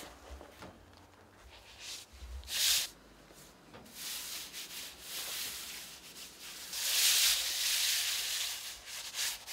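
Bare palms rubbing and smoothing a sheet of washi paper laid over a carved woodblock, a dry hissing rustle that transfers the printed pattern to the paper. A short swish comes about two and a half seconds in; the rubbing turns steady and louder in the last few seconds.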